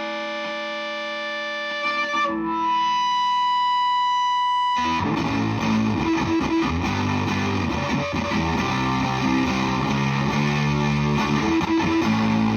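Electric guitar played through the Flum Dilly distortion and boost pedal: a held chord rings and fades, a single high note sustains, then about five seconds in a thick, distorted chord riff comes in and runs on.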